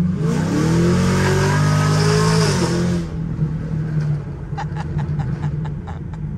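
Chevrolet Camaro 1LE engine heard from inside the cabin, its revs climbing under hard acceleration, then falling off as the throttle is lifted. About a second later comes a quick string of sharp pops.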